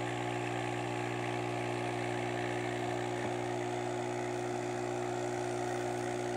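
Steady low electrical hum of small aquarium equipment running beside a quarantine fish tub, even and unchanging throughout.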